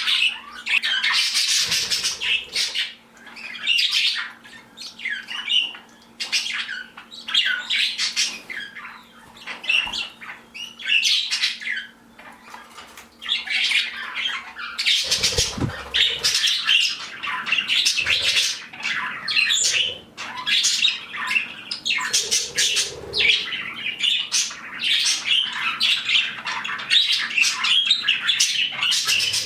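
A flock of pet budgerigars and other small parrots chattering and squawking in overlapping calls, with short lulls between bouts.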